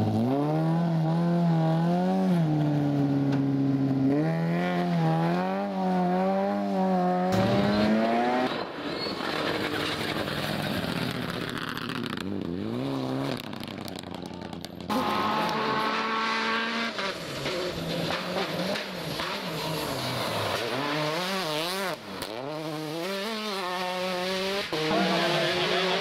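Rally car engines revving hard in several passes cut one after another. The engine note climbs and drops with each gear change, with stretches of rushing tyre and gravel noise between.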